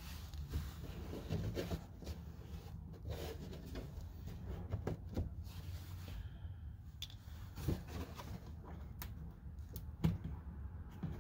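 Handling sounds: rustling with a scatter of light clicks and knocks as hands work at the plastic fascia clips up inside the wheel well, the sharpest knock about ten seconds in.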